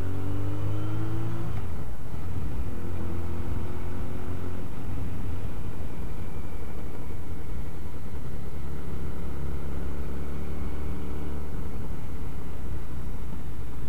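Motorcycle engine heard from the rider's seat, over steady road and wind noise. The engine note falls slightly in the first second or so, then runs steadily and picks up again for a few seconds past the middle.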